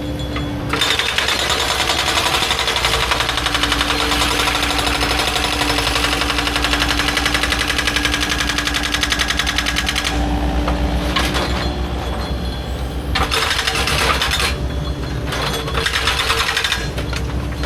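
Heavy machine's engine running steadily, with loud metallic rattling and clatter for most of the first half, then in shorter bursts.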